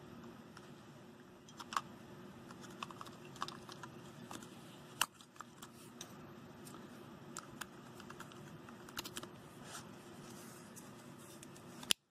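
Small plastic clicks and taps of a handheld fan remote control being handled while its 12-volt battery is fitted and the battery cover is put back. Scattered light clicks throughout, with a sharper one about five seconds in and the sharpest near the end.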